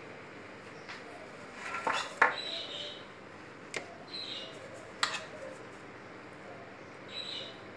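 A metal spoon clinking and scraping on a round metal baking tray as a topping is spooned onto rounds of pizza dough. There are a few sharp clinks, the loudest about two seconds in and single ones near four and five seconds, with faint high chirps in between.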